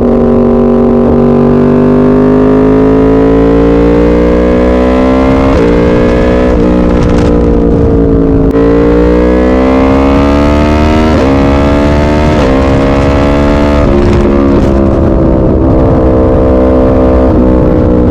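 Yamaha MT-10's crossplane inline-four engine running hard on the road, its note climbing and falling with the throttle, with several sudden breaks in pitch that sound like gear changes.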